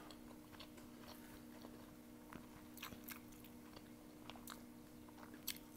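Faint chewing of noodles, with a few soft, scattered mouth clicks and smacks over a faint steady hum.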